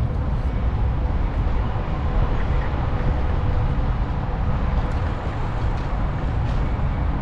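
Steady wind rush and rumble from riding a bicycle, with wind buffeting the microphone and the tyres running on the asphalt.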